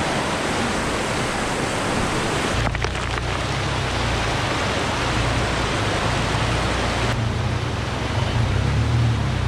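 Steady rush of flowing water, with a low rumble joining about two and a half seconds in.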